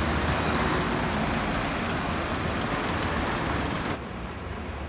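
Steady outdoor city noise, an even hiss over a low rumble like distant road traffic, which drops abruptly to a quieter hum about four seconds in.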